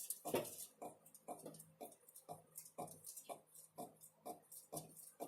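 Faint, rhythmic squeaking, about three short squeaks a second: the "cricket" squeak in the dashboard of a 2019 UAZ Patriot. The owner puts it down to the clear air-conditioning condensate drain tube rubbing against the gearbox bell housing, like a piece of rubber rubbing.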